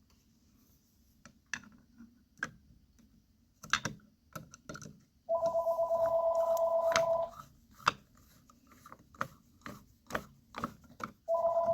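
Scattered light clicks and taps, then a telephone ringing: one electronic two-tone warbling ring lasting about two seconds, with the next ring starting near the end.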